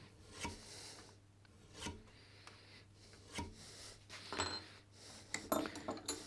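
Carbide burnisher drawn along the edge of a steel cabinet scraper clamped in a vise, four soft scraping strokes a second or more apart, with a few light clicks near the end. The strokes curl the scraper's edge over into a hook.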